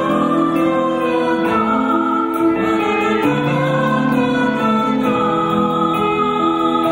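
Live music: a large choir singing long held notes together with a rock band.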